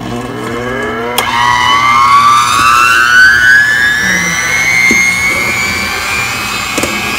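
Black & Decker electric hand mixer beating egg yolks in a stainless steel bowl. Its motor whine rises steadily in pitch over the first few seconds as it spins up, then holds steady, with a single click about a second in.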